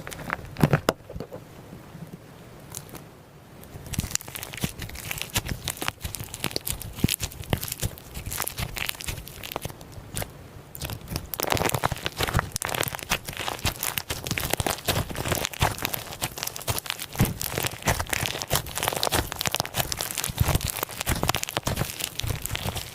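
Slime being squeezed and pressed by hand, making dense crunching and crackling. It starts sparse and grows busier and louder about eleven seconds in.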